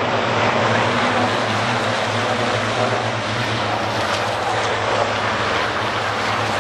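Racing trucks' diesel engines running at speed: a steady, dense drone with a low engine hum underneath.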